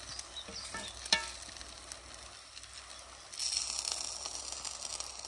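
Pancake batter and sausages frying on a hot muurinpohja griddle pan, a steady crackling sizzle. A sharp click comes about a second in, and the sizzle grows louder and brighter a little past halfway.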